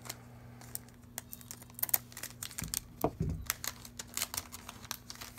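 Pokémon trading cards clicking and snapping as they are flicked through by hand, in quick irregular clicks, after a scissor snip opening the booster pack near the start.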